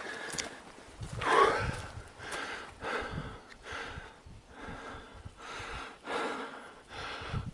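A hiker's heavy breathing from the exertion of climbing a steep trail: a loud exhale about one and a half seconds in, then breaths roughly once a second.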